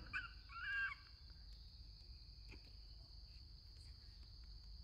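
Outdoor ambience: one short, high two-tone animal call about half a second in, then a steady high-pitched insect drone with faint low background noise.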